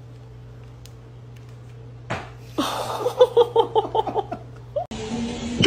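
A person laughing in a quick run of 'ha-ha' pulses for about a second and a half, just after a single sharp sound at about two seconds in; before that, only a low steady room hum.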